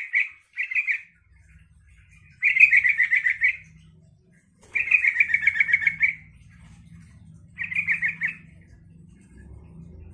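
Caged yellow-vented bulbul (trucukan) singing: short bursts of fast, bubbly chattering notes, each lasting about a second, repeated every couple of seconds. A faint low hum runs underneath.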